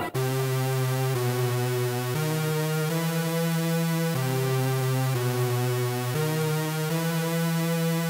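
Synthesizer music: sustained, held chords that change about once a second at an even level, coming in abruptly after a choppy, stuttering passage.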